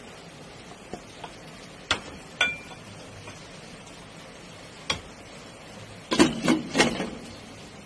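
A spoon clicking and scraping against a plate and the rim of a stainless steel pot as string beans are pushed in, one click ringing briefly like metal. Then, about six seconds in, a glass pot lid clatters four or five times as it is set down on the pot.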